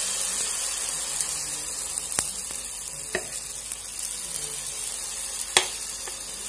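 Semolina-and-flour chila batter sizzling in hot oil as it is spooned onto a nonstick dosa tawa. A steady hiss starts as the batter hits the pan and slowly eases, with a few sharp clicks, the loudest near the end.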